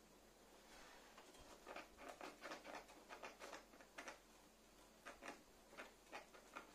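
Scissors cutting through the taped seam of a cardboard shipping box: a run of faint, short, scratchy cutting strokes.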